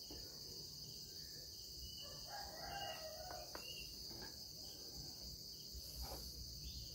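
Faint background of insects droning steadily, with a faint rooster crow about two seconds in.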